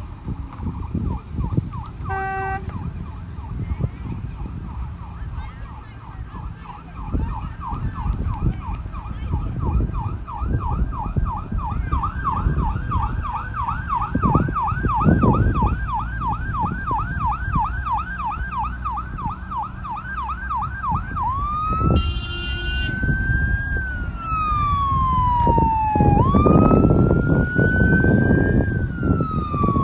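Emergency vehicle siren on a fast yelp, rising and falling several times a second, switching about two-thirds through to a slow wail that climbs and falls every few seconds. A horn blasts briefly near the start and again for about a second as the siren changes. A steady low rumble of vehicle engines runs underneath.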